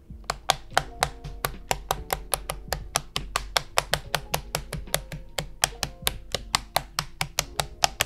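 KTT Kang White v3 mechanical keyboard switches being snapped one after another into the CIY Tester68's aluminium plate and hotswap sockets, each seating with a sharp click, about four clicks a second.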